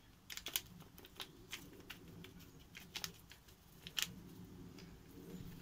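A paper sachet of ground white pepper being handled and torn open: faint, irregular crinkles and small rips, the sharpest at about half a second in and again around three and four seconds.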